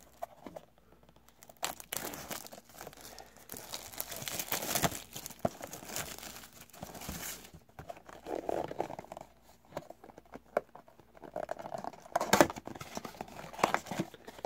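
Plastic shrink wrap being torn and crinkled off a cardboard trading-card blaster box. Near the end the box's cardboard flap is pried open, with a few sharp clicks.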